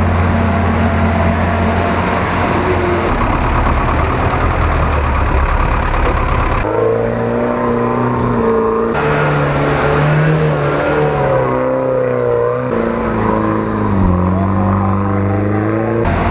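Off-road vehicle engines, a GAZ-66 truck and a UAZ-469 among them, revving and labouring through deep water and mud. The clips are cut together, so the engine note changes abruptly several times, and within each clip the pitch rises and falls with the throttle.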